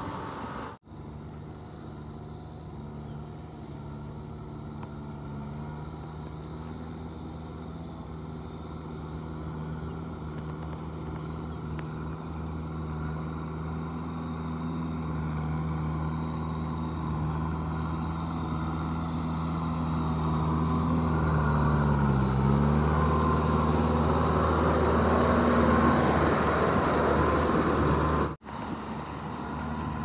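Kubota M6240SU tractor's diesel engine running steadily under load while pulling a rotary tiller through flooded paddy mud, growing louder as it draws near. About two-thirds of the way in, the engine note sags briefly and recovers.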